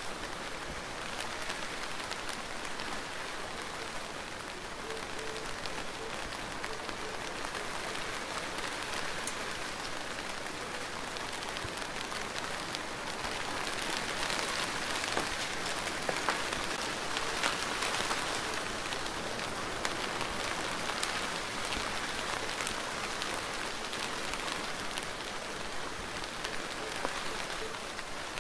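Steady rain falling, an even hiss with many small drop impacts ticking through it. It grows a little heavier in the middle and eases again.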